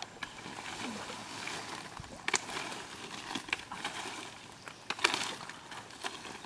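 A few sharp knocks and clicks from the bamboo spit frame being handled, the loudest about two and a half and five seconds in, over a steady outdoor hiss.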